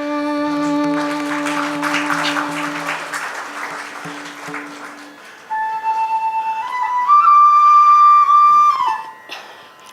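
Accompaniment music for a dance drama: a held low note fades away about five seconds in, then a flute plays a phrase that climbs in steps to a long high note and stops shortly before the end.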